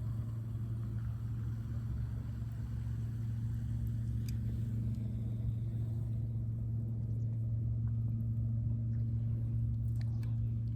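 A steady low engine hum with a rumble, holding one pitch throughout, and a few faint clicks about four seconds in and near the end.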